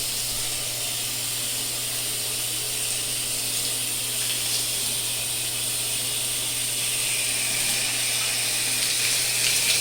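Water spraying hard from a StoneStream handheld shower head: a steady hiss, with a low steady hum underneath.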